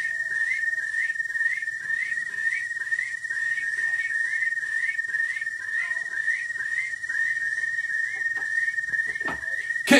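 Human vocal imitation of spring peeper frogs: a steady high whistle held while short upward-slurred peeps repeat over it, about two to three a second. A short low knock and a sharp click come near the end.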